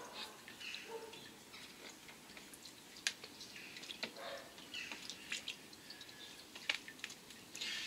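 Faint scattered drips and small gurgles of water in a clear plastic tube that is siphoning air out of an upturned glass tank standing in a pond, with a few sharp little clicks about three, four, five and six and a half seconds in.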